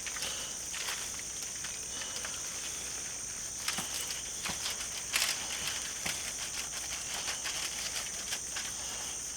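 Knife trimming the hard fat cap off a raw pork butt: a few light taps and scrapes against the cutting board, heard over a steady high hiss.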